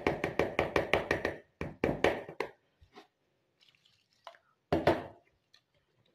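Wire whisk beating gram-flour (besan) batter in a plastic bowl, clicking against the bowl in a quick run of strokes at about seven a second. It then goes on in two shorter spurts, one about two seconds in and one about five seconds in.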